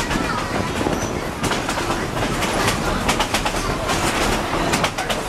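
Narrow-gauge excursion train's open passenger car rolling along the track: a steady rumble with the wheels clicking over the rail joints.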